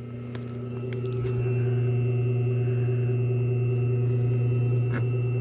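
Hot tub pump motor humming steadily with a low electric drone, growing louder over the first couple of seconds and then holding level. A few faint clicks come early, and a short knock comes near the end.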